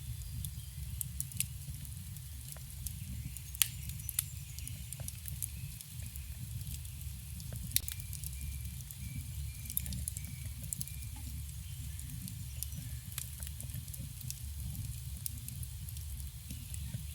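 Campfire burning, with sharp, scattered crackles and pops over a steady low rumble of the flames.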